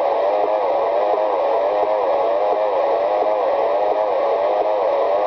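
Cobra 2000 GTL CB base station's speakers putting out a warbling tone pattern that repeats about twice a second over steady radio hiss.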